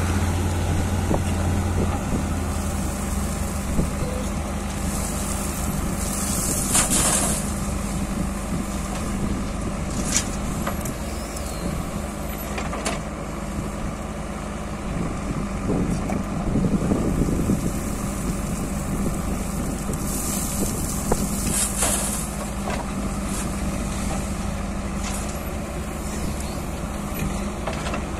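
Diesel engine of a backhoe loader running steadily as it digs into a pile of crushed-stone sub-base. There are two short hisses, about a quarter of the way in and again about three-quarters in, and a few faint clicks.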